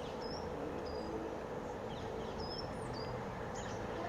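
Small birds chirping: a scattering of short high chirps and brief whistled notes over a steady low background hum.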